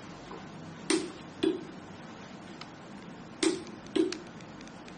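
YDL-983A pneumatic glue dispenser's valve clicking open and then shut about half a second later, in its automatic timed continuous-discharge mode. Each pair of clicks is one timed dispensing shot. The pair comes twice, about two and a half seconds apart.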